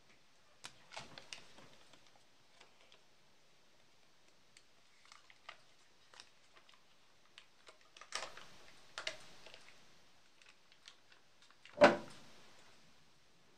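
Scattered light clicks and taps of hands working at an empty nonstick pan, then one loud, dull thud about 12 seconds in as a block of butter is dropped into the pan.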